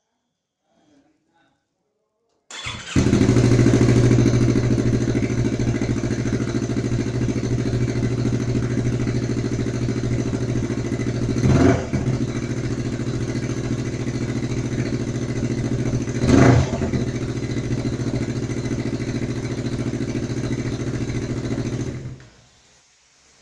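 Yamaha YZF-R25's 250 cc parallel-twin engine, breathing through a Pro Liner TR-1 aftermarket exhaust, starting about two and a half seconds in, then idling steadily. It is blipped briefly twice at low rpm and shut off near the end.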